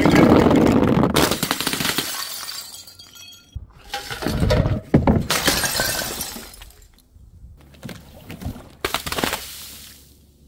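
Glass bottles and jars shattering in several separate loud crashes, some followed by briefly ringing shards of glass.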